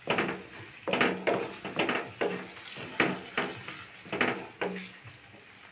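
Wooden spatula stirring thick mushroom curry in a pan. It scrapes the pan in about ten short strokes, roughly two a second.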